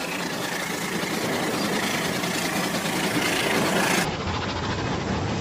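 Battery-powered toy trains running on plastic track, a rattling motor hum that grows steadily louder as they approach.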